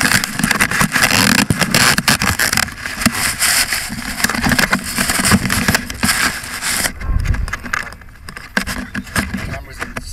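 Handling noise on the weather balloon's payload camera: rubbing, rustling and knocking against the housing as its container is moved about. It is loud and hissy at first and eases to lighter crackles and knocks about seven seconds in.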